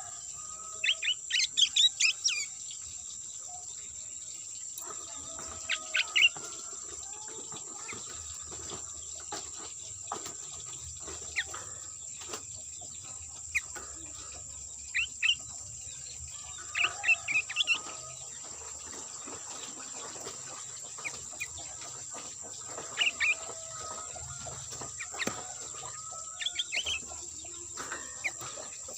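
Sooty-headed bulbul (kutilang) lure calls: short bursts of quick, bubbly chirping notes repeated every few seconds. A steady high-pitched whine runs underneath.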